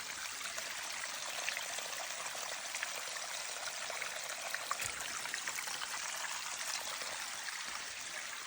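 Water running and trickling steadily, like a small stream, with a light patter of small drips and splashes.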